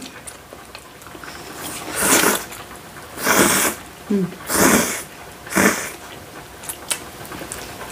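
People slurping thin bibim-guksu (spicy mixed) noodles: four short, noisy slurps about a second apart, starting about two seconds in, with a brief hum between the second and third.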